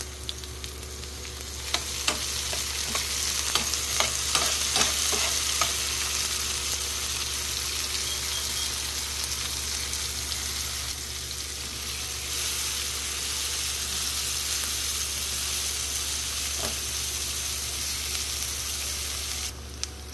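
Chopped red onion and minced garlic sizzling in a nonstick frying pan, with a spoon clicking and scraping against the pan during the first few seconds as the garlic is stirred in. The sizzle drops off just before the end.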